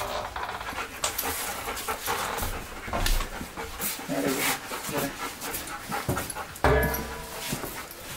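German Shepherd dog panting steadily, with one brief, louder pitched sound about two-thirds of the way in.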